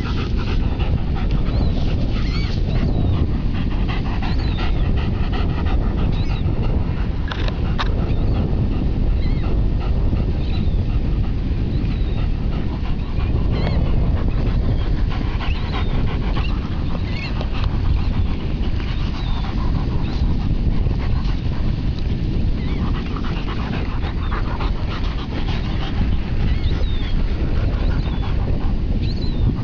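German Shepherd whining in short high calls while digging, his paws scraping through the sand, over a steady low rumble of wind on the microphone.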